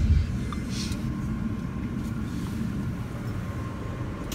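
Steady low rumble inside an R160 subway car, with a sharp thump at the start and another near the end.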